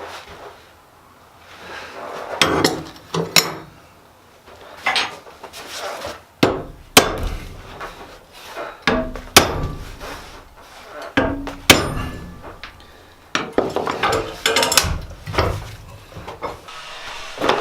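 Blacksmith's hammer striking metal on an anvil: a dozen or so irregularly spaced blows, some grouped close together, some leaving a brief metallic ring.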